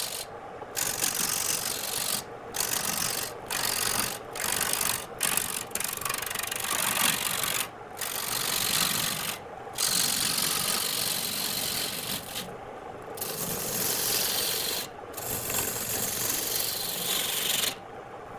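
Wood spinning on a lathe while a tool scrapes and cuts it in repeated passes, each a stretch of rough hissing broken by short pauses when the tool lifts off. The lathe's motor hums steadily underneath.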